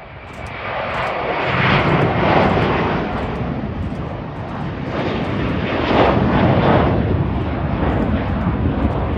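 Twin-engine jet airliner taking off, its engines at takeoff power as it lifts off and climbs; the engine noise swells about a second in and stays loud, rising and falling in slow surges.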